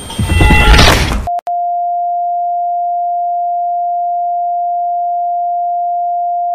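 A loud, harsh burst of noise lasting about a second, cut off abruptly. It is replaced by a steady electronic beep: a single pure tone held at one pitch.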